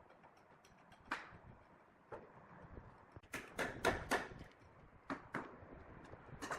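Scattered sharp knocks and clacks, with a quick run of four louder ones about three seconds in.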